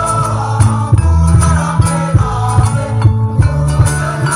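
School choir singing to accompaniment, with a strong bass line and a regular percussion beat with jingles.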